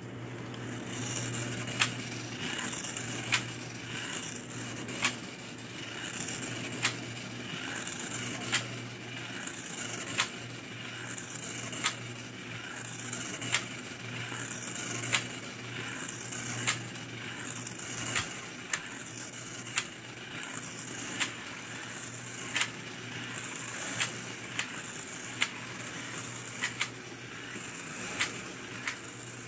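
Toy slot cars running around a small plastic oval track: a steady high electric-motor whine that swells and fades as the cars circle, with a sharp click about every one and a half seconds.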